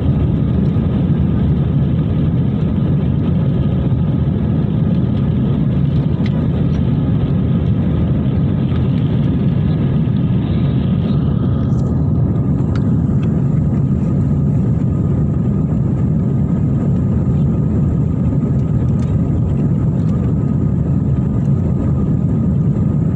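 Steady cabin noise of an Airbus A320-family airliner climbing out after takeoff: a deep, even rumble of the jet engines and rushing air, heard from inside the cabin. About halfway through, the higher hiss above the rumble thins out.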